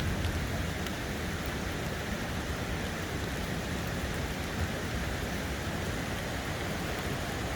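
Steady rain falling, an even hiss with no single drops or events standing out.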